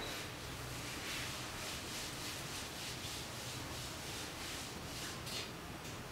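Fingers working a Dell laptop's keyboard and touchpad: soft taps and rubs, a few a second, over a low steady hum.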